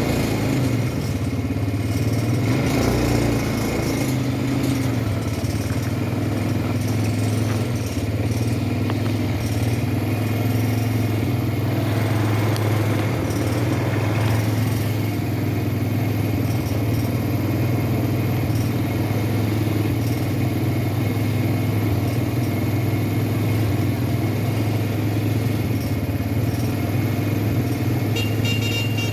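ATV engine running at a steady pace, an even low drone that hardly changes in pitch or loudness.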